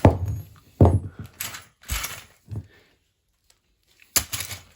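Hammer blows on a cheap plastic fan: about five sharp knocks in quick succession over the first two and a half seconds, then a pause and one more a little after four seconds.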